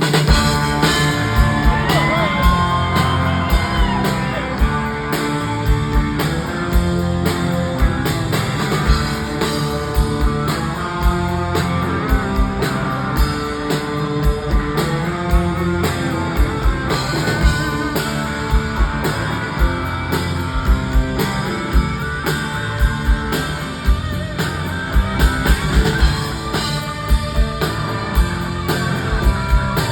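Live rock band playing an instrumental break: an electric guitar lead with bent, gliding notes over bass and drums.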